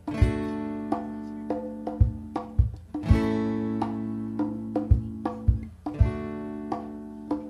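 Acoustic guitar strummed in a steady rhythm, its chords ringing, with a sharp low thump on many of the beats. It is the instrumental opening of a live acoustic song, with no singing yet.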